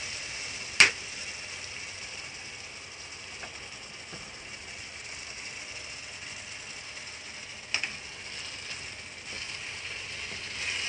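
Chicken livers sizzling in soy sauce in a pot, a steady hiss with a little crackle. A sharp knock about a second in and a lighter one near eight seconds, and a wooden spoon starts stirring near the end.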